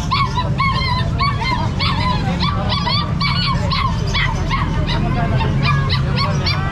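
Many caged puppies yelping and whining over one another, a quick, unbroken stream of short high-pitched yips, over a steady low rumble.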